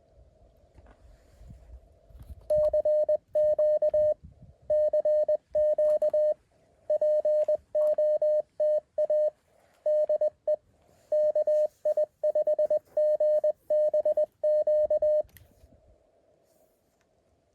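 Morse code from a Mountain Topper QRP CW transceiver: a single steady tone keyed in dots and dashes, starting a couple of seconds in and stopping about two seconds before the end, over faint receiver hiss.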